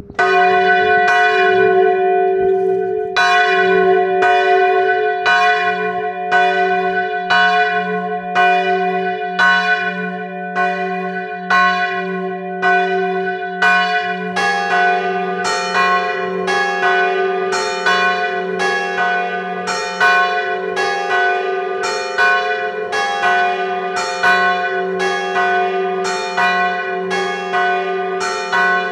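Church bells tolling a death knell (glas): a bell strikes about once a second, each stroke ringing on over a steady low hum. About halfway through, strokes from a second bell fall in between, so the strokes come about twice a second.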